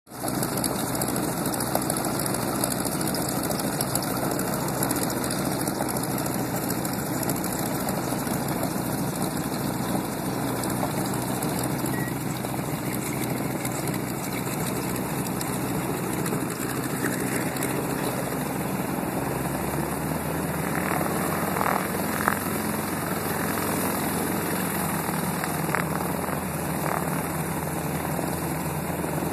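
North American T-6 Texan's nine-cylinder Pratt & Whitney R-1340 radial engine running at taxi power, a steady propeller-driven drone. About twenty seconds in, its low note changes as the aircraft turns away.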